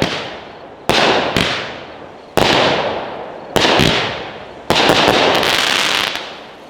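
A 30-shot, 200-gram consumer firework cake firing, with shots about a second apart. Each is a sharp report with a long rolling echo. From about 4.7 s a dense burst of crackling runs for about a second and a half, the cake's crackle finale, then it dies away.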